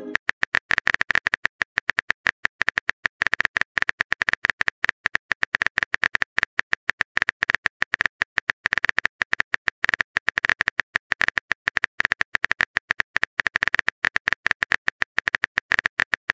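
Rapid run of short, even clicks from a phone texting app's keyboard typing sound effect, one tick per letter, broken by a few brief pauses.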